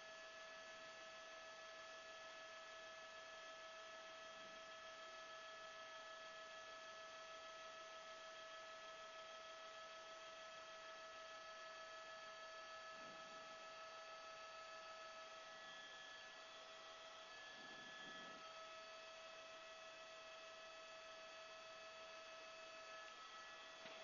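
Near silence with a faint, steady electrical hum made of several fixed tones; no sound of the fire itself.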